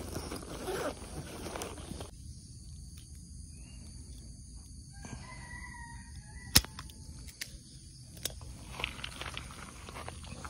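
A rooster crowing faintly about five seconds in, for about two seconds. Rustling in the first two seconds, and a single sharp click partway through the crow, the loudest sound here.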